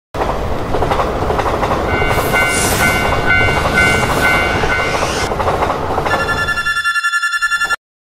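Train cars rolling along the track with a steady rumble. From about two seconds in, a railroad crossing warning bell rings in quick repeated dings, a little over two a second, for about three seconds. A steady horn-like tone sounds near the end, and everything cuts off suddenly just before it ends.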